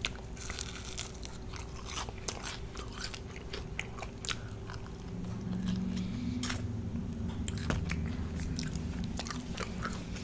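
A person biting, chewing and crunching crispy fried food, with many sharp crunches throughout and a low steady tone swelling in the middle.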